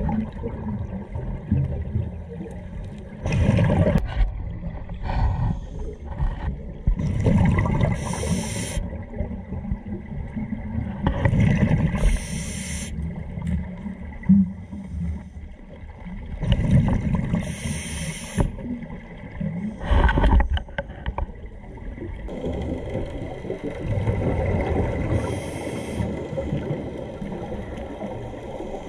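Underwater sound of a scuba diver breathing through a regulator: about six rushing bursts of exhaled bubbles, a few seconds apart, over a steady low rumble of water.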